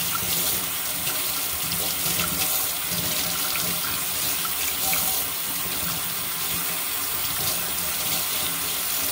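Kitchen faucet running steadily into a stainless steel sink while a piece of cotton fabric is rinsed and worked by hand under the stream.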